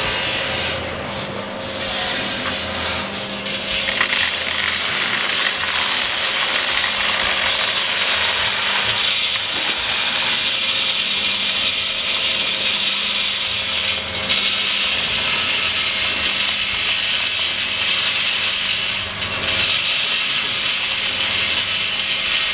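A 10 kg drum coffee roaster running with a steady motor hum. Roasted coffee beans rattle as they tumble in the drum and pour out of the discharge into a cardboard box, the rattling thickening a few seconds in.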